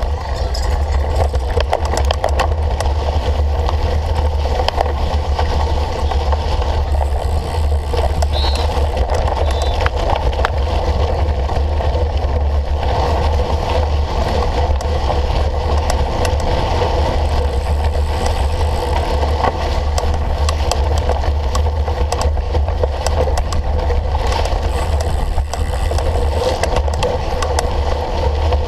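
Steady wind rumble on the microphone and the tyre and drivetrain noise of a cyclocross bike being ridden at race pace, with scattered clicks and rattles.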